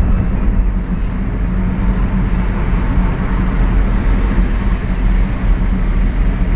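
Steady engine and road noise of a moving car, a constant low rumble with a droning hum.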